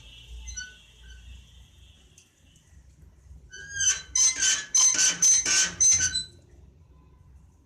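A door rattled repeatedly by a small child trying to open it, its metal fittings clinking and ringing in a quick run of about eight strokes over two and a half seconds, starting about halfway through.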